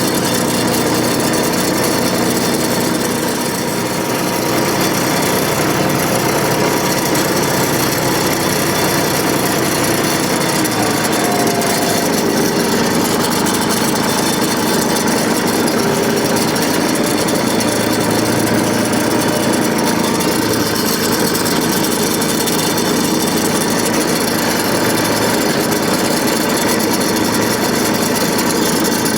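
Tractor engine running steadily at work while the blade pushes and spreads dirt to level the ground.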